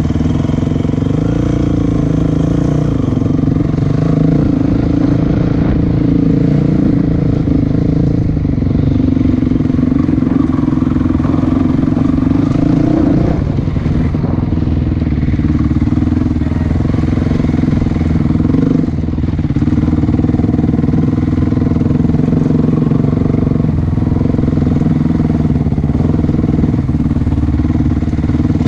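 Small off-road vehicle engine running steadily under load, easing off briefly about halfway through and again a few seconds later.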